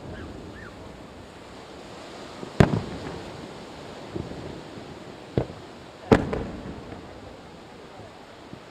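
Aerial firework shells bursting: four sharp bangs spread over several seconds, the loudest about two and a half and six seconds in, each trailed by a rumbling echo.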